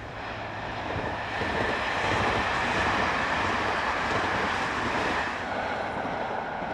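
Electric passenger train running past on the rails: a rushing rumble that swells about a second in and eases off near the end, with a faint steady high whine over it in the middle.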